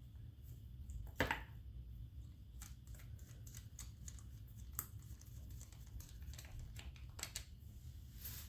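Scattered light clicks and taps of metal parts and hand tools being handled while a Tuff Torq K91 hydrostatic transaxle is being taken apart, the sharpest about a second in, over a low steady hum.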